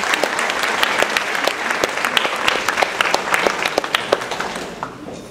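Concert audience applauding, the clapping thinning out and fading away near the end.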